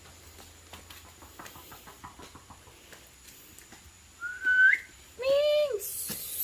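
A person whistling: a short rising whistle about four seconds in, then a longer, louder call that rises and falls away. A brief hiss follows near the end.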